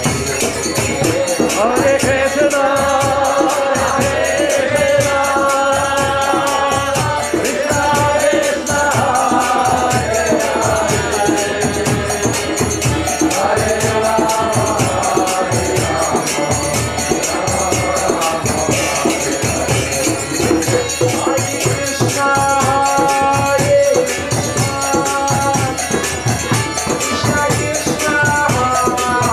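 Kirtan: a group of voices sings a devotional chant over a steady beat of jingling hand cymbals and percussion.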